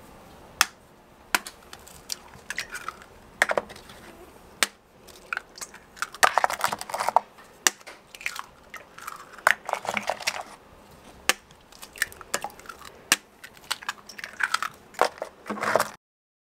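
Food being prepared by hand: scattered sharp knocks and clicks of utensils and containers, with several short crunching, rustling bursts, the loudest about six and ten seconds in. The sound cuts off abruptly near the end.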